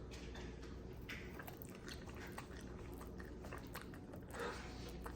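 Faint chewing of spicy instant ramen noodles, with small wet mouth clicks and smacks scattered through.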